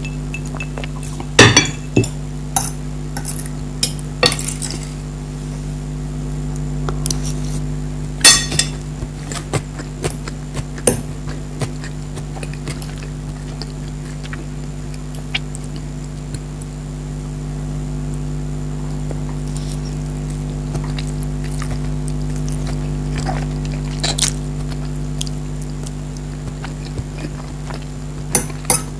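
Cutlery clinking and scraping against a plate every few seconds while eating, with a few sharper clinks. A steady low hum runs underneath.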